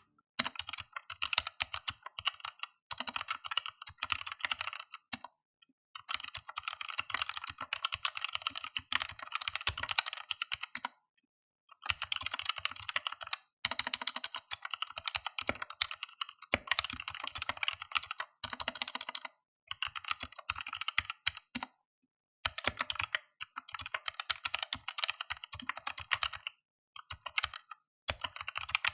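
Typing on a Vortex VX5 mechanical keyboard with Outemu Red linear switches: fast, dense keystrokes in runs of a few seconds, broken by short pauses.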